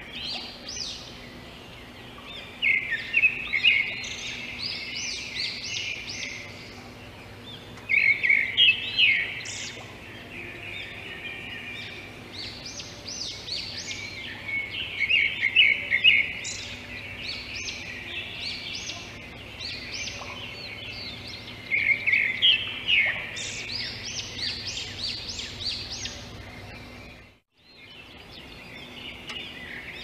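A songbird singing: loud bursts of rapid, high chirping phrases every few seconds, with quieter chirps between them. The sound drops out briefly near the end.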